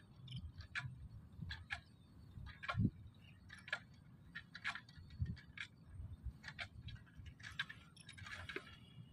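Irregular light clicks and ticks, roughly one or two a second, over a low rumble.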